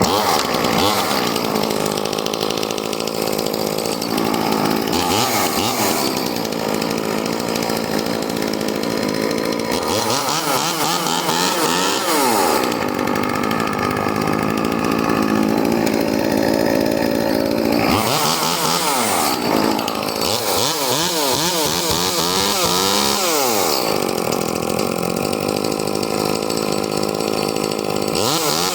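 Echo 2511T top-handle two-stroke chainsaw, fitted with a West Coast Saws aftermarket muffler, running just after start-up. It is revved up and held high, drops back and is revved again several times.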